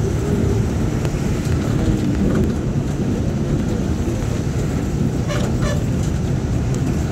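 Steady low rumble of a moving vehicle heard from inside as it drives through rain on a wet road, with a few brief rattles a little past five seconds in.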